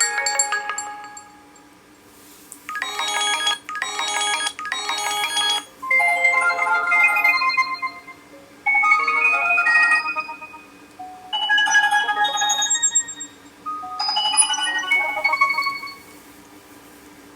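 An HTC Desire 610 smartphone playing short built-in tone previews through its speaker, one after another: about half a dozen different chiming melodies, each a second or two long, with brief pauses between them.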